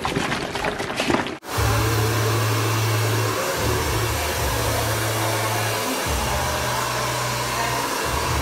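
A plastic bottle crackles as it is handled for about a second and a half. After an abrupt cut, a hair dryer runs steadily, with a low hum that drops out briefly a few times.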